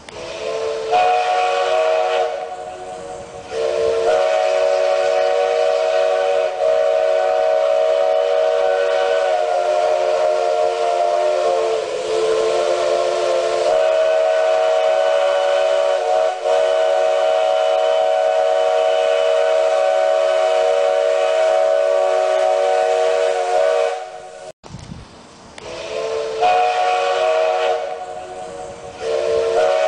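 Steam locomotive's chime whistle sounding a chord of several notes over steam hiss. A short blast comes about a second in, then one long blast held for about twenty seconds; it breaks off and sounds again in shorter blasts near the end.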